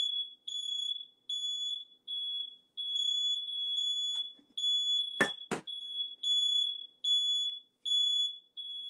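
Kitchen smoke alarm set off by cooking, sounding a high-pitched beep over and over, a little more than once a second. Two sharp knocks come about five seconds in.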